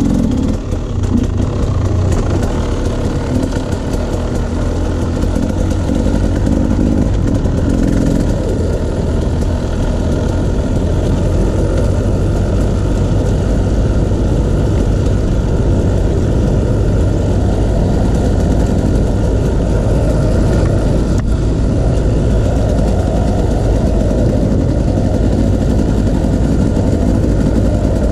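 Off-road motorcycle engine running under way on a trail, a continuous drone whose pitch drifts up and down with the throttle, with a short dip in level about a second in.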